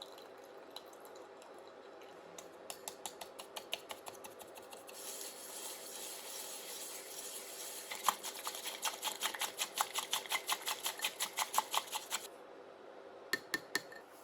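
A kitchen utensil clinking fast and evenly against a bowl, about five strokes a second, as in whisking or beating, over a steady hiss; the clinking stops abruptly, and a few quick clicks follow near the end.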